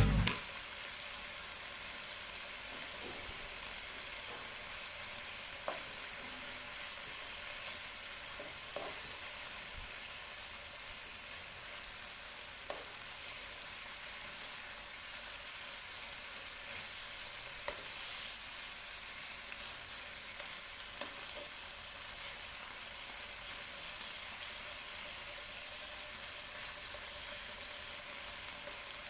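Food sizzling steadily in a hot pan, with a few faint clicks scattered through.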